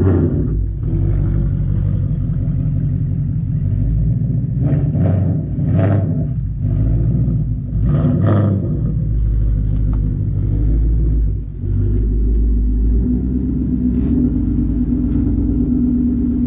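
Ford Mustang S550's engine running at a steady low idle as the car is driven slowly along a driveway and back, with short blips of the throttle about five and eight seconds in.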